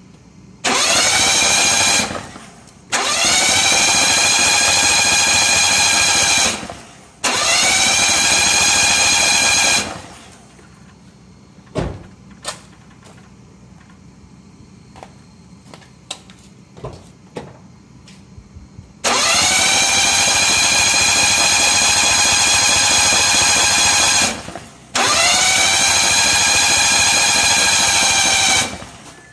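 Suzuki K6A three-cylinder engine spun over on its starter motor in five bursts of about one to five seconds, each whining up briefly in pitch and then holding steady without the engine firing. This is cranking to clear engine conditioner poured into the cylinders through the spark plug holes.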